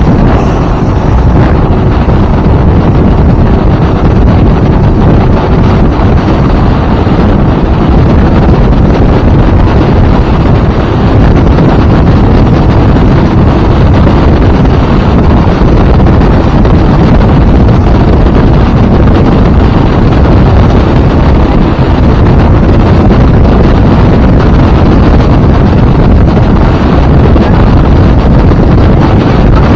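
Loud, steady wind buffeting the microphone aboard a 2000 StarCraft motorboat running through big waves, with the boat's motor and the rush of water under the hull mixed in.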